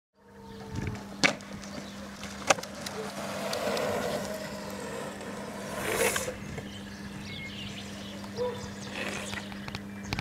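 Longboard on 70 mm 86a Orangatang urethane wheels rolling on asphalt, a steady hiss with two sharp clacks in the first few seconds and a brief louder burst of hiss about six seconds in.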